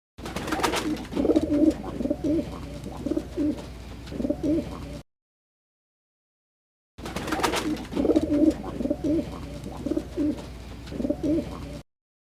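Pigeon cooing: a run of low, throaty, wavering coos. It comes as two stretches of about five seconds each, with about two seconds of silence between them. Each stretch opens with a brief noise.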